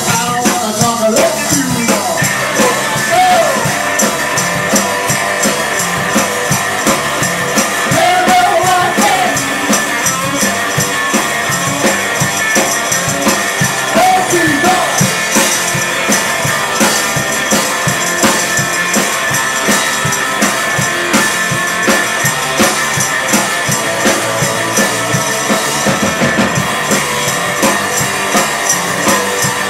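Live rock band playing an instrumental stretch: electric guitar, bass and drum kit keeping a steady beat, with a tambourine shaken along. A high held note comes in about two seconds in and sustains over the groove.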